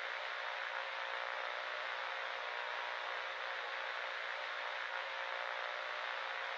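Steady hiss of broadcast static at an even level, with faint steady tones beneath it.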